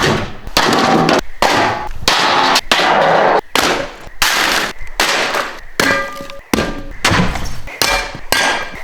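A rapid, irregular series of heavy impacts and crashes, about one every half second to second: a giant dart dropped from height smashing into objects.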